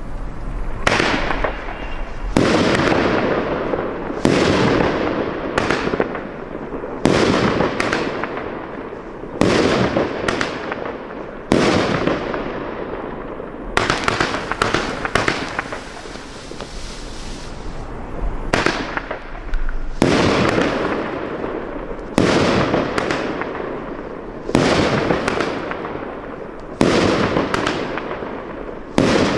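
A 200-gram, 16-shot consumer fireworks cake firing shot after shot, roughly every two seconds. Each shot is a sharp bang followed by a fading hiss, with one longer pause partway through.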